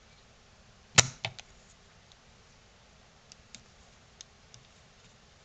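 A sharp click about a second in, followed quickly by two lighter clicks, then a few faint ticks: metal soldering tools and pliers knocking against a small power-supply circuit board while an output capacitor is desoldered.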